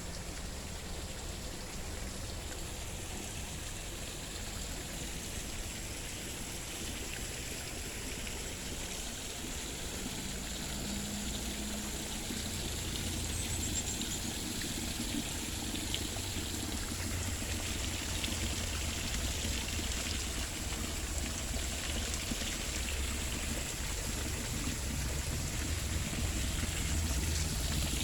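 Water running and trickling steadily, as from a garden stream or small waterfall, growing a little louder in the second half.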